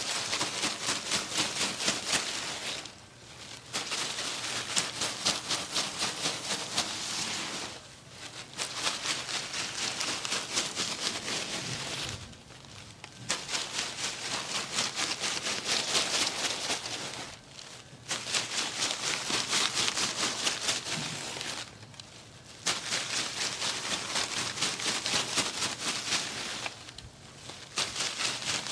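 Rapid rhythmic percussive massage tapping, about ten light strikes a second. It comes in runs of about four seconds broken by brief pauses.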